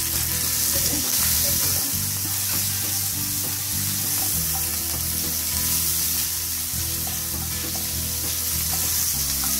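Chopped tomato frying in hot oil in a nonstick pan, a steady sizzle, stirred with a wooden spatula.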